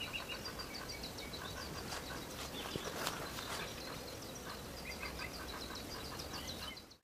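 Small birds chirping and singing, many short quick calls overlapping, over a faint outdoor hiss.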